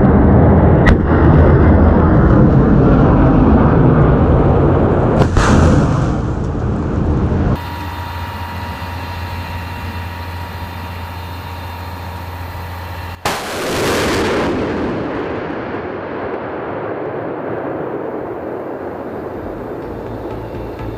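Rocket launches from an M142 HIMARS launcher. The first is a loud rushing roar with sharp cracks about one and five seconds in, and it cuts off abruptly. After a quieter stretch with a faint steady hum, a second launch starts with a sharp crack about thirteen seconds in, and its roar fades away slowly.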